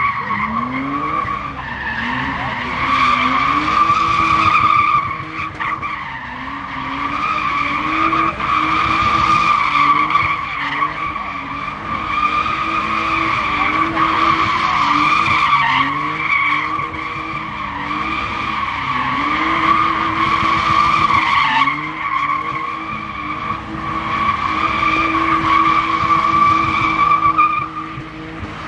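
A car spinning doughnuts: the tyres squeal in a steady high two-tone squeal, while the engine revs rise and fall over and over beneath it.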